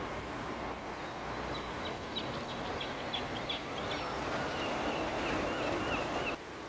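Town-park ambience of steady traffic and wind noise, with a small bird chirping in short high calls through the middle and a wavering high call after it. The background noise drops abruptly near the end.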